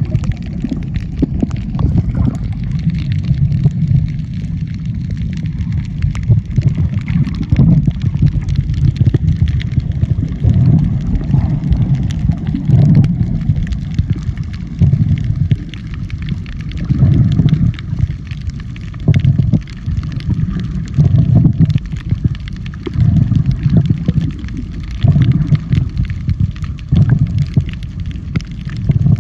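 Underwater sound from a camera held by a snorkeler: a muffled low rumble of moving water that swells about every two seconds, over a steady fine crackling.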